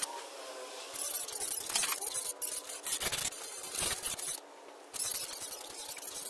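Concrete blocks clinking and knocking against each other as they are handled and stacked, with several sharp hard hits over outdoor background hiss.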